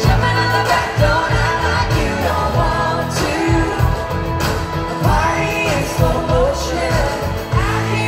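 Live country band playing amplified through a concert sound system: a sung vocal melody over electric guitars, bass and a steady drum beat, heard from the crowd.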